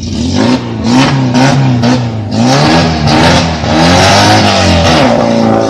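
Small van's engine revving hard under load as it pushes through a shallow muddy river, its pitch rising and falling several times.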